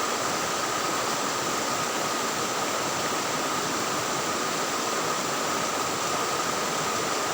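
Fast-flowing river water rushing steadily, a constant hiss with no breaks.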